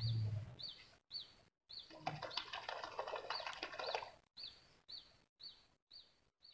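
A bird repeating one short, high chirp about twice a second. A rustling noise joins for about two seconds in the middle.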